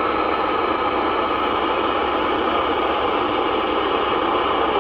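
CB radio receiver on the 11-meter band giving a steady hiss of static from its speaker between skip transmissions.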